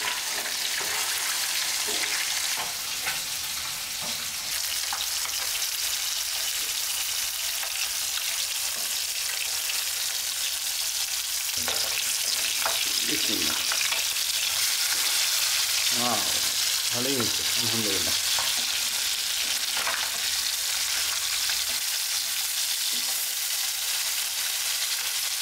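Whole fish shallow-frying in soybean oil in a pan: a steady sizzle of hot oil, with a few scrapes and taps of a metal spatula nudging the fish so it doesn't stick.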